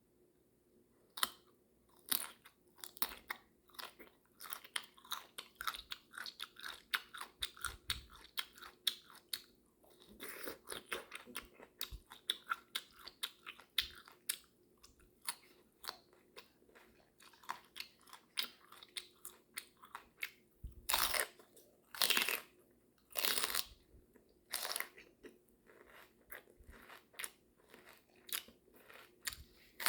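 A person chewing and biting food with the mouth open: a quick, uneven run of sharp mouth clicks, with a few louder, longer sounds about two-thirds of the way in.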